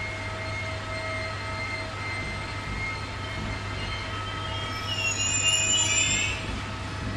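Trenitalia regional passenger coaches rolling past on the rails, their wheels squealing with several steady high tones. About five seconds in, a louder, higher squeal rises over them for about a second, and a low steady hum runs underneath.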